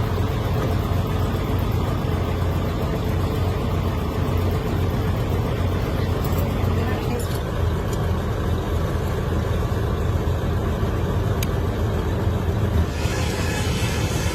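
Steady low mechanical rumble of machinery running, with a few faint clicks.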